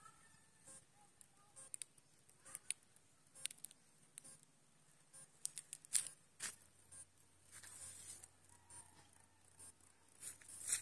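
Faint, irregular crackles and clicks of footsteps on dry grass and leaves, mixed with handling noise on the phone, with a louder cluster of clicks near the end.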